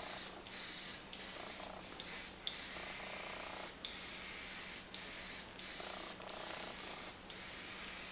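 Airbrush spraying paint onto a fabric shirt: a hiss of air and paint that stops and starts in short bursts, breaking off briefly about once a second.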